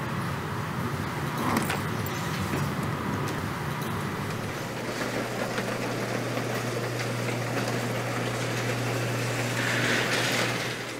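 Factory machinery noise: a steady mechanical din, with a low hum setting in about four and a half seconds in and holding steady.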